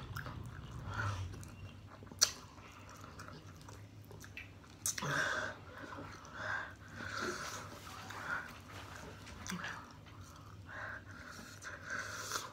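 A person chewing and eating sauce-covered chicken wings, with a sharp click about two seconds in.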